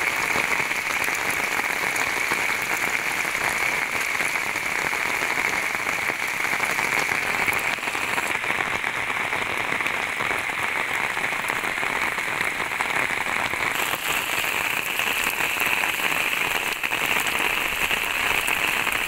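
Steady rain falling, an even hiss of drops that keeps the same level throughout.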